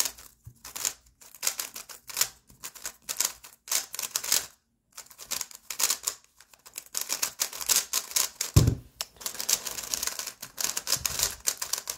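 Brand-new MoYu WR M 2021 Maglev 3x3 speedcube turned quickly by hand: a rapid, uneven clatter of plastic layers clicking, with a short pause near the middle and one dull thump about two-thirds of the way in. The cube is not yet broken in.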